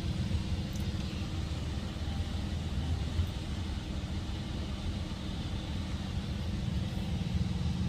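An engine running steadily, a low even rumble with a fine rapid pulsing, on a concrete finishing job.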